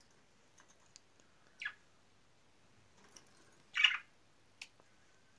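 Budgerigars giving two short calls: a quick falling chirp about a second and a half in, then a louder, harsher chirp near four seconds, with a few faint clicks between.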